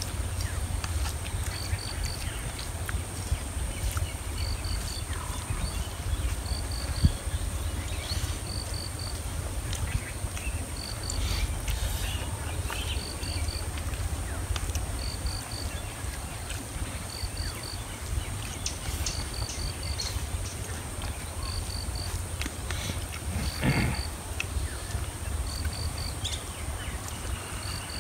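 Outdoor ambience: a steady high insect drone with a short three-pip chirp repeating about every second and a half, over a low rumble of light wind on the microphone.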